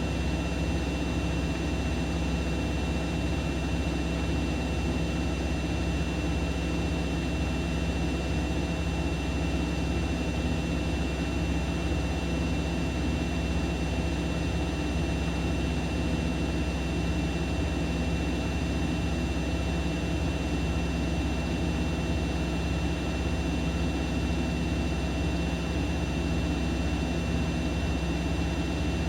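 Siemens Siwamat iQ 716 washing machine running: a steady mechanical hum with a thin, constant high-pitched whine, unchanging throughout.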